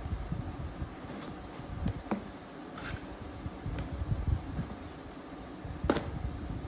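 A small cardboard box handled and opened by hand: scraping and rustling with a few sharp clicks, the loudest near the end, over a steady background hiss.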